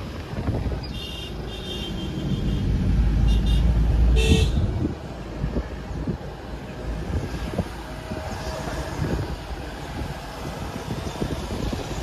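A car driving, with steady road and wind rumble that swells for a couple of seconds. Several short vehicle horn toots sound in the first half.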